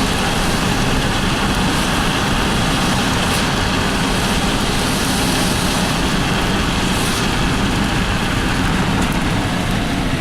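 Car driving, its engine running steadily under a constant rush of tyre and road noise.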